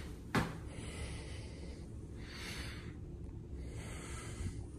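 Soft breathing close to the microphone, about three slow breaths, with one small click about a third of a second in.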